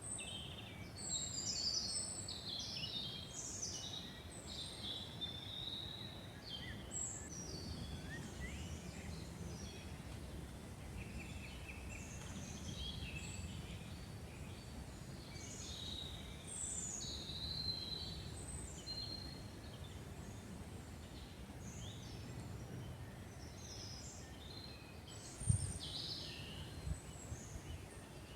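Several songbirds singing and calling in a forest, with short high chirps and warbles coming and going over a steady low background rumble. A single brief low thump sounds near the end.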